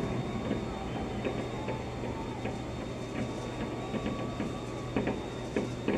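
Distant fireworks going off, heard through an office window: scattered pops and crackles about once a second over a steady low hum.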